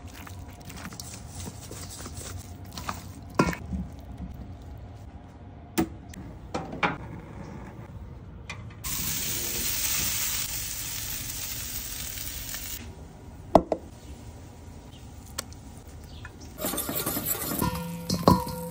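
Raw chicken wings being tossed in sauce in a stainless steel bowl, with scattered sharp clinks and knocks against the metal. About nine seconds in comes some four seconds of steady sizzling from wings cooking in a wire rotisserie basket over a gas grill, then more clinks near the end as cooked wings go into a steel bowl.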